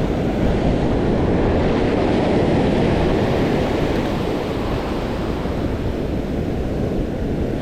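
Ocean surf washing onto a sandy beach, a steady rushing wash that swells a little a second or two in, with wind buffeting the microphone.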